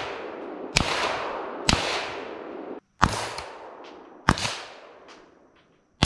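Four 300 Blackout rifle shots heard from about 50 yards downrange, each a sharp crack with a long fading tail. The first two are unsuppressed 147-grain supersonic rounds from an 8.5-inch short-barrelled rifle. The sound cuts off abruptly shortly before the third shot.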